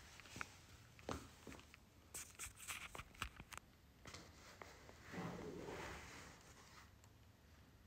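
Faint rustling of fabric and scattered light clicks close to the microphone, with a slightly louder rustle lasting about a second, some five seconds in.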